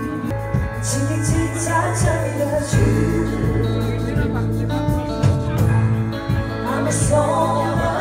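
Live pop band playing a song: a steady bass line and drum beat under electric guitar and keyboard, with singers' voices over them.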